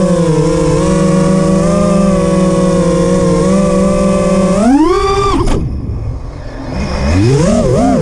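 Chameleon FPV quadcopter's brushless motors and propellers whining steadily at a hover, then spooling up to a sharp rise in pitch for a punch-out climb about four and a half seconds in. The whine cuts off suddenly just after, leaving a quieter gap, and then the motors spool back up with a pitch that wavers up and down as the throttle changes.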